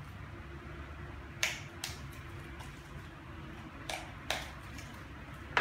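A handful of sharp, short plastic clicks and snaps, irregularly spaced, as the battery compartment cover of a Hubsan H501S drone is worked open, over a steady low hum.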